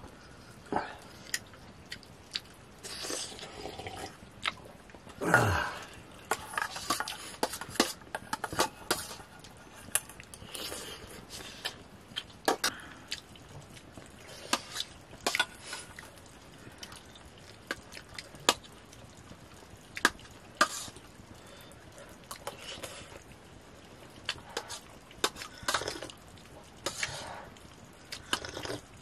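Steel spoons clinking and scraping against a steel bowl and plate as two people eat, in irregular light clicks, with one louder falling sound about five seconds in.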